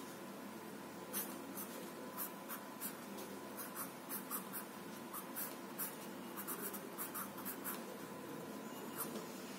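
Pencil scratching on paper in many short, quick, irregular strokes while sketching.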